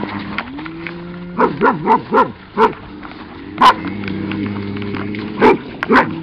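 A dog barking in short, sharp barks, with a quick run of four or five about a second and a half in and single barks after that. Under them run long, low, drawn-out calls from highland cattle.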